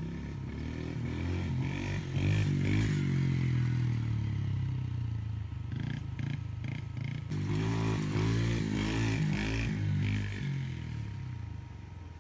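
A small dirt bike engine running as a child rides it. Its pitch rises and falls with the throttle in two louder stretches, and it fades near the end.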